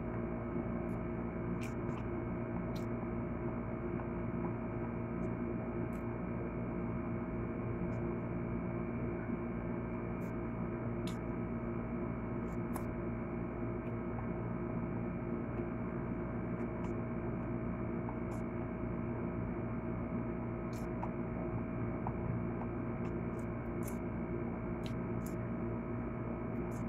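Steady electrical hum made of several fixed tones, unchanging throughout, with faint sharp clicks scattered through it.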